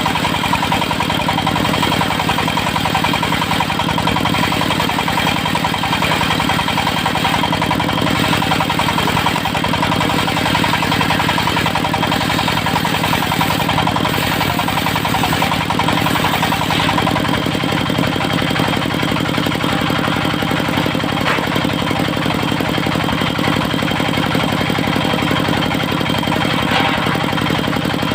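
Engine of a mobile circular-saw sawmill running steadily at a constant speed, with a steady high whine over the engine note.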